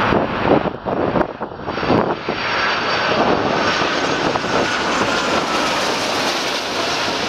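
Airbus A330-300 airliner with Rolls-Royce Trent 700 jet engines flying past on its landing approach: a steady rush of engine noise with a faint whine that falls slowly in pitch. Gusts of wind buffet the microphone in the first couple of seconds.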